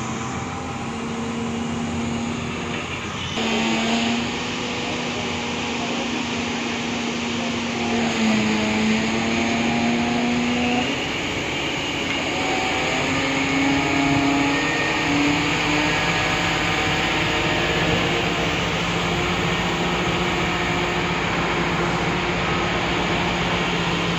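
Heavy construction machinery engines running steadily: a continuous mechanical drone with a low hum that shifts in pitch a few times.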